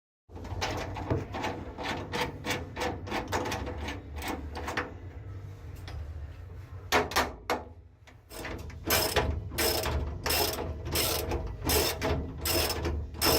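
Ratchet wrench clicking in repeated short strokes as a seatbelt mount bolt is tightened back down. The clicks pause for a few seconds about halfway, then resume more slowly.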